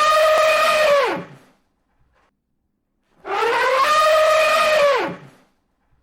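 Elephant trumpeting: long calls, each rising, holding, then dropping sharply at its end. One call ends about a second and a half in and an identical one follows about three seconds in, with dead silence between them.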